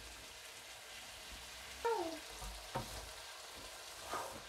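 Bean sprouts and carrot strips sizzling in a hot wok as they are stir-fried with a wooden spatula, which knocks against the pan three times. A brief falling squeak sounds about two seconds in.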